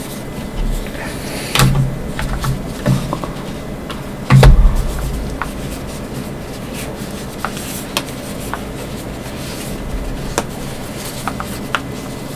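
Handling noise from over-ear headphones being turned and worked in the hands: scattered light clicks and knocks, with a heavier thump about four and a half seconds in.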